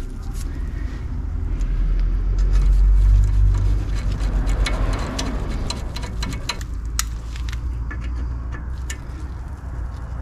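A vehicle passing by, a low rumble that swells to a peak about three seconds in and fades away, with small scattered metallic clicks and taps from fitting a grub screw into a new brake disc by hand and screwdriver.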